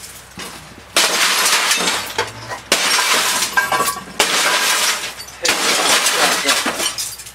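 Thick front glass of a Magnavox CRT television's picture tube being smashed with a hammer: four hard blows, one about every second and a half, each followed by shattering and the crunch of falling glass.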